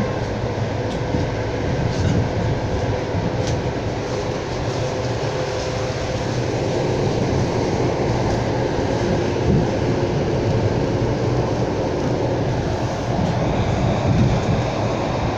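Suburban electric train running, heard from inside the passenger carriage: a steady running noise of wheels on the rails and the moving car.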